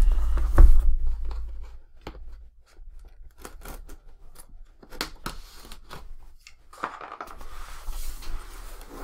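Cardboard laptop box being opened by hand: a couple of knocks as it is handled, then a string of sharp, irregular clicks, with a scraping, tearing noise near the end.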